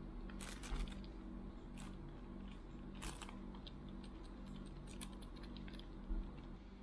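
Scattered small clicks and taps, a few louder than the rest, over a steady low electrical hum.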